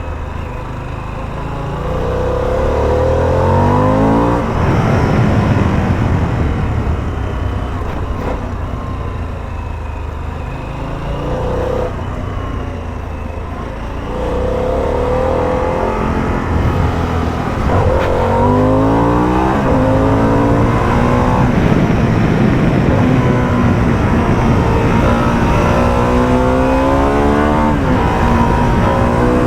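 Harley-Davidson Pan America's Revolution Max 1250 V-twin under way, pulling up through the revs again and again, with sudden drops in pitch at each upshift, then running steadily at higher speed for a stretch near the end.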